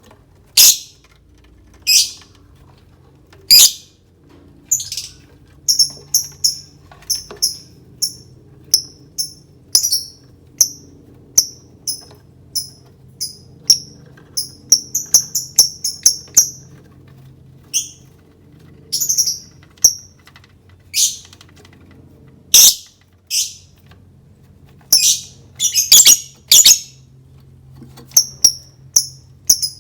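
Lovebird giving short, shrill, high-pitched chirps one after another at irregular intervals, some in quick runs of several.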